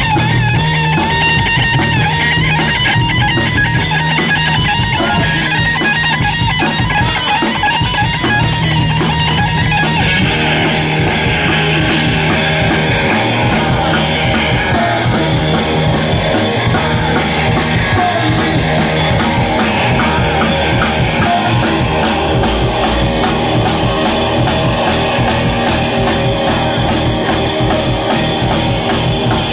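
Live rock band playing: electric guitar lead lines with wavering, bent notes over drum kit and bass guitar. The sound fills out and grows denser about ten seconds in.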